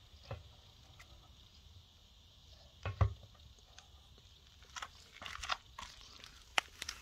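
Handling noise of a steel Simson AWO motorcycle fuel tank being turned around by its filler neck: a dull knock about three seconds in, then scattered scrapes and clicks, with a sharp click near the end.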